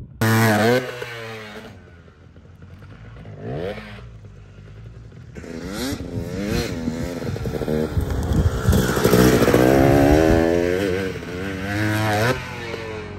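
Dirt bike engine revving on a motocross track, its pitch rising and falling with the throttle and gear changes. There is a short loud burst at the start, then a quieter stretch with one rising rev, then the engine runs loud through the second half before cutting off suddenly near the end.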